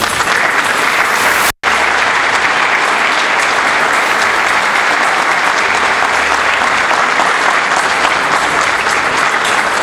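Audience applauding steadily, broken by a split-second gap about one and a half seconds in.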